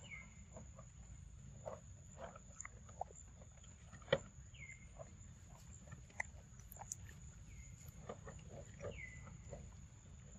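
A macaque chewing soft papaya up close: a scatter of short, wet smacking clicks, with one sharper click about four seconds in. A steady high insect whine and a few short falling chirps sit behind it.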